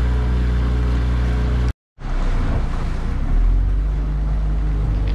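Mercury 9.9 horsepower four-stroke kicker outboard running steadily, pushing the boat at low speed, with water rushing in the wake and wind on the microphone. The sound cuts out briefly just under two seconds in, then the motor hum returns, its low drone growing louder about a second later.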